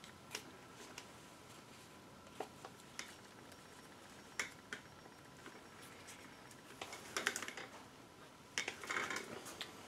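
Faint, scattered clicks and light knocks of hands handling the timing belt and pulleys on the front of the engine, a few at first and busier about seven seconds in and again near the end.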